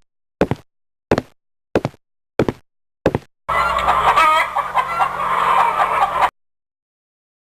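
A run of sharp knocks, evenly spaced about two-thirds of a second apart, followed by nearly three seconds of chicken-like clucking and squawking that cuts off abruptly.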